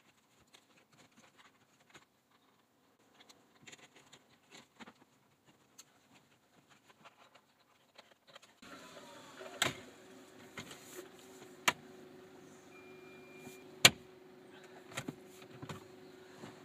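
Faint plastic clicks and rustling of the Kia Ceed's centre console trim being pushed back into place. A little over halfway through a steady hum comes on, and several sharp clicks follow as buttons on the dash panel are pressed.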